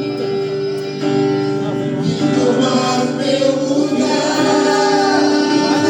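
Gospel worship music: held keyboard chords, with singing voices coming in about two seconds in.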